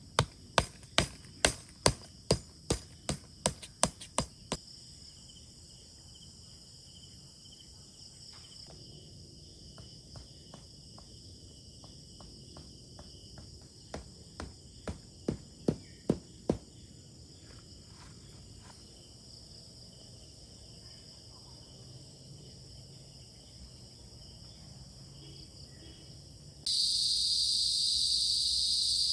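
Steady chirring of crickets and other insects, with two runs of sharp knocks at about three a second, the first a dozen strokes long and the second shorter about halfway through. Near the end the insect sound jumps suddenly much louder.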